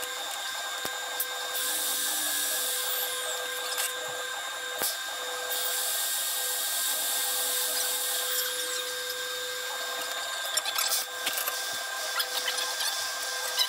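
TIG welding arc buzzing steadily with a hiss, as a bead is laid with repeated dabs of filler rod to 'stack pennies'.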